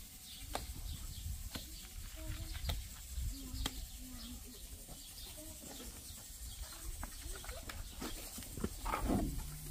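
Goats bleating in short calls, with one louder bleat falling in pitch near the end, over scattered clicks and scrapes of gloved hands working wet cement mortar.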